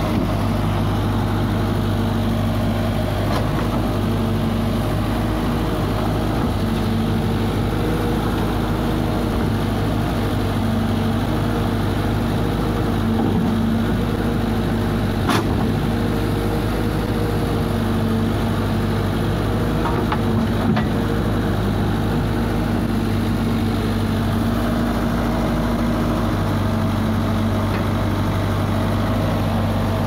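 Diesel engine of a Komatsu WB140 backhoe loader running steadily at an even speed, with a sharp click about fifteen seconds in and another about twenty-one seconds in.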